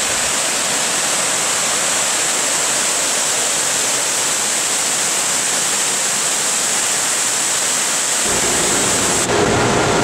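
Water spilling over the long weirs of a sand filter's overflow troughs and falling into the filter bed below, a steady rushing like a small waterfall. Near the end it gives way to a lower, steady machine hum.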